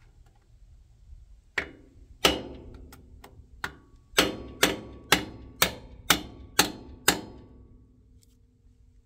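Hammer striking a bushing driver, knocking new bushings into the clutch shaft bore of a Ferguson TO20 tractor: about a dozen sharp blows, a few uneven ones and then a steady run of about two a second, with a ringing tone that hangs on after the last strike.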